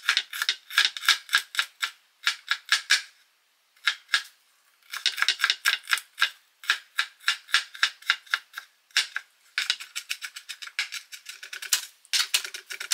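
Kitchen knife rapidly chopping garlic cloves on a cutting board, in quick runs of strokes with a few short breaks, the strokes coming faster near the end.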